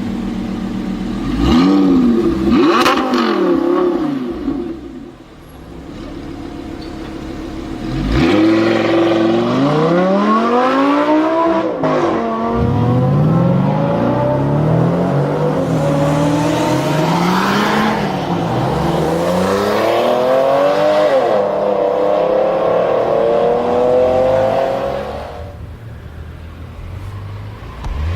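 High-performance sports car engine revving hard, its pitch climbing and falling again and again in a series of rises. It drops away briefly about five seconds in and again near the end.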